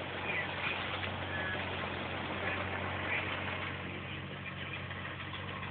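Four-wheel-drive's engine running steadily, heard from inside the cabin as a low hum, under a steady hiss of tyres on a wet, flooded road.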